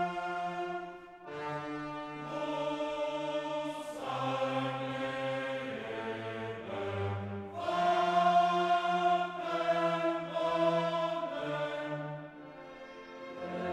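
Slow orchestral background music, with long held chords that change every second or two.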